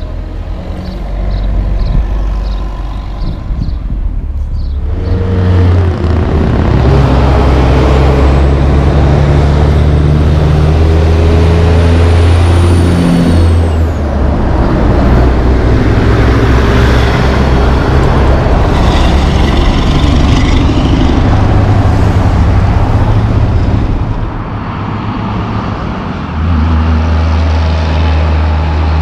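Heavy diesel trucks running and driving past close by, their engines a steady low drone over tyre and road noise that swells loud about five seconds in. A reversing alarm beeps repeatedly for the first few seconds.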